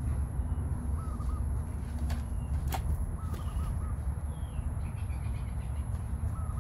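A bird calls a short phrase twice, about two seconds apart, over a steady low rumble and a faint steady high-pitched tone. A couple of sharp clicks come between the calls.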